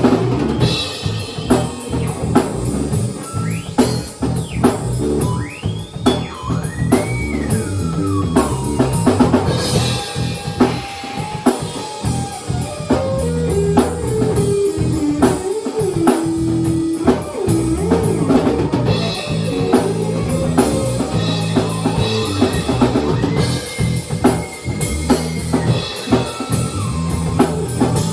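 A small band jamming live: a drum kit keeps a steady beat under a guitar playing a lead line that bends and slides in pitch, with a slowly descending run about halfway through.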